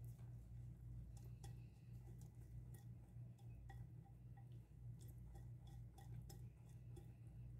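Faint ticking of a whisk knocking against a glass mixing bowl while whisking custard cream, a few irregular clicks a second over a low steady hum.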